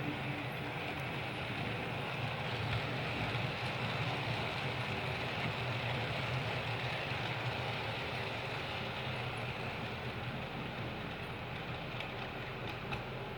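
OO gauge model train running along the track, a steady motor whir and wheel rumble on the rails, with a few light clicks near the end.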